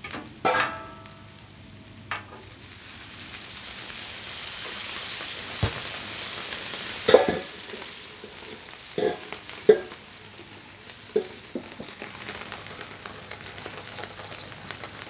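Water sizzling and hissing into steam on the hot steel plate of a Blue Rhino Razor flat-top griddle, building over a few seconds and then easing. Sharp metal clanks from a spatula and a stainless basting dome on the griddle, the loudest about seven seconds in.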